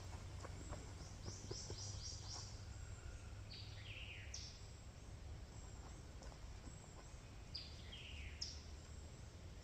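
Songbirds calling in woodland: a short phrase of quick falling chirps, high then a little lower, repeated about every three to four seconds, with other quick downward-sweeping notes between, over a faint steady low rumble.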